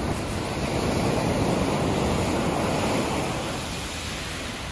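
Sea waves washing ashore: a steady rush of surf that swells about a second in and slowly eases off from about three seconds.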